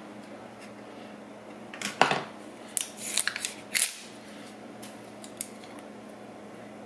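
A bottle of barbecue sauce being opened by hand: one sharp click about two seconds in, then a quick run of small crackling clicks as the cap is worked off, and a few faint ticks later.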